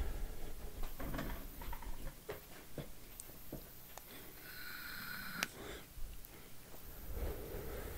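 Quiet breathing and sniffing close to a microphone, with a few soft clicks and a brief high tone about five seconds in.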